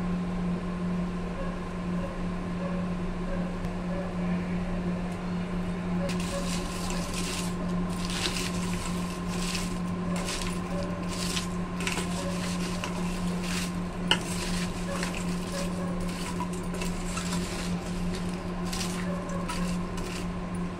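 A spoon stirring crisp fried papad pieces and chopped vegetables in a stainless steel bowl: irregular crackling and rustling with spoon clinks and scrapes against the metal, starting about six seconds in, with one sharper clink about halfway through. A steady low hum runs underneath.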